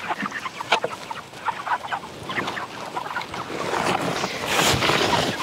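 Cornish Cross broiler chickens clucking in short scattered calls, with a rustling, scraping noise about four seconds in as a feed trough is handled.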